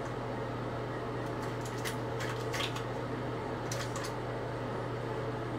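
A few short crinkles of a pregnancy test's packaging being handled, in two clusters, around two seconds in and again near four seconds, over a steady low hum.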